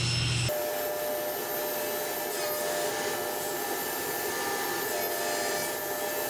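Sliding panel saw running and cutting a sheet of quarter-inch pre-finished birch plywood to size: a steady saw noise with a faint whine.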